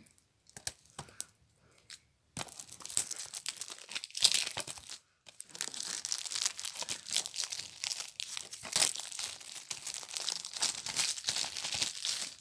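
Plastic shrink-wrap being torn and crumpled off a Blu-ray case: a few light clicks at first, then about ten seconds of continuous crinkling, with a short break about five seconds in.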